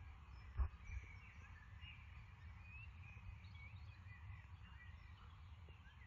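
Birds chirping and warbling faintly over a low, steady rumble, with a single thump about half a second in.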